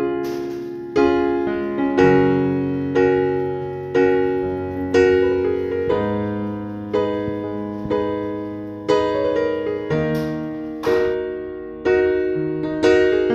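Background music: an electric piano playing slow chords, struck about once a second, each one fading before the next.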